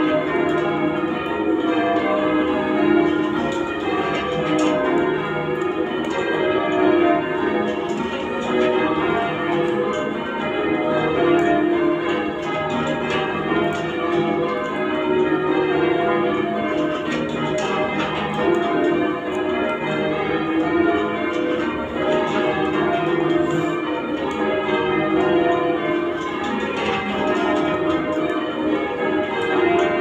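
Change ringing on Bristol Cathedral's ring of eight church bells, a 21 cwt ring tuned to E-flat, heard from the ringing chamber below. The bells strike in an even, unbroken stream of changes.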